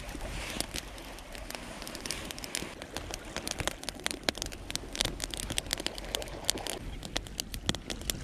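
Wood campfire crackling, with many irregular sharp pops and snaps over a soft hiss.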